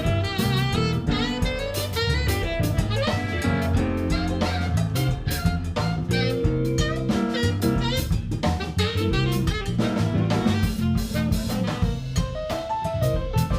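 A band jamming on a blues song: a drum kit keeps the beat under a bass line, with a lead instrument playing wavering, bending notes over the top.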